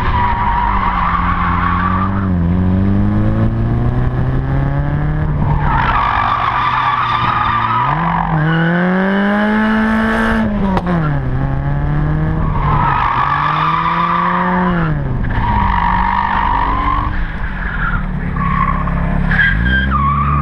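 Hatchback's engine heard close up from a camera on the car's side, its revs rising and falling with throttle and gear changes at low speed, once clearly revved up and let back down. Several bursts of tyre squeal, each a second or two long, sound over the engine.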